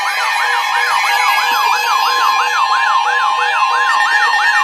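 Electronic alert siren sweeping quickly up and down, about three times a second, sounding for a severe thunderstorm warning. A steady tone joins underneath partway through.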